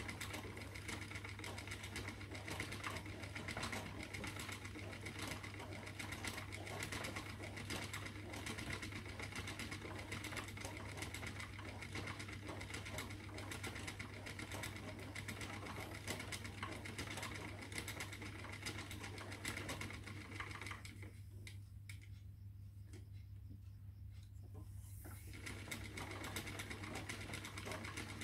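Spinning wheel running steadily while plying silk with merino: a continuous low hum with a fine, fast rattle over it. The rattle drops out for about four seconds near the end, then returns, while the hum carries on.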